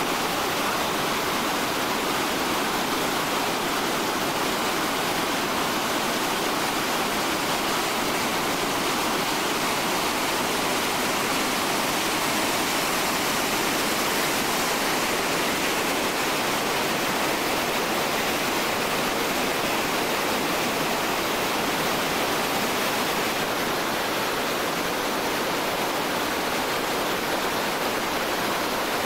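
Whitewater rapids rushing steadily over boulders, a constant loud roar of churning river water.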